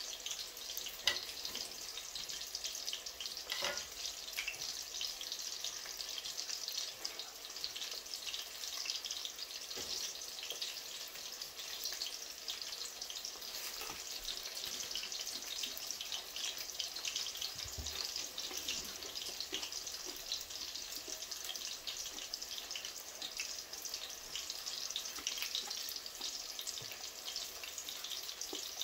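Saltfish fritter batter shallow-frying in hot oil in a pan, a steady sizzle with fine crackling. A couple of light knocks come about a second in and again a few seconds later.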